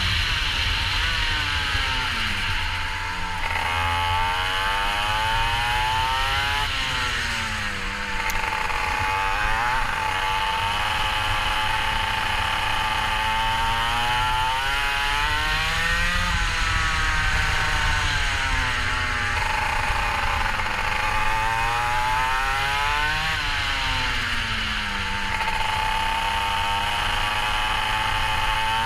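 Go-kart engine running hard around a track, its pitch climbing on each straight and dropping off into corners, about half a dozen times.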